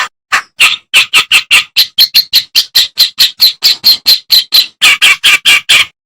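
Kerakbasi (reed warbler) singing a rapid run of harsh, chattering notes, about four a second, evenly repeated, stopping near the end.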